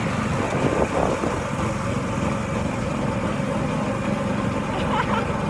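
Go-kart engine running steadily while the kart is driven.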